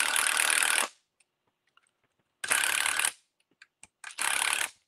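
Cordless electric screwdriver running in three short bursts, driving the button-head screws that hold an RC buggy's rear gearbox to its chassis. The first burst stops just under a second in, and the other two come about two and a half and four seconds in, with faint clicks between them.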